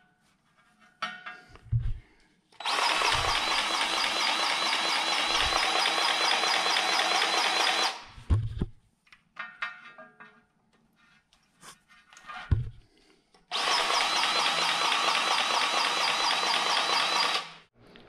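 DeWalt cordless grease gun motor running in two long steady pulls, about five seconds and then about four seconds, pumping grease into the excavator's grease fittings. A few short knocks come between the runs.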